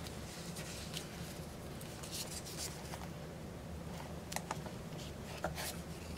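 Faint short scrapes and clicks as a plastic scraper is swiped through wet acrylic paint on a canvas and the canvas is handled, heard a handful of times over a steady low hum.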